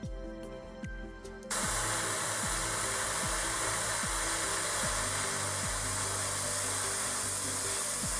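A steady hiss of rushing air starts suddenly about a second and a half in and keeps going at an even level, over background music.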